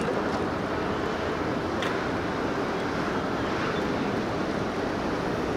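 Steady outdoor harbour noise of wind on the microphone and water, with one faint click about two seconds in.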